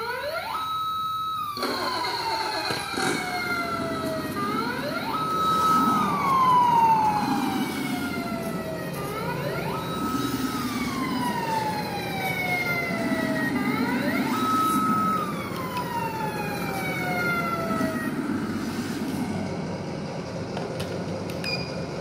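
Siren sound from the sound module of an MN D90 1/16 RC Defender, wailing in cycles that rise quickly, hold, then fall slowly, about every four and a half seconds. Underneath runs the module's simulated engine note, swelling and fading with throttle as the truck drives.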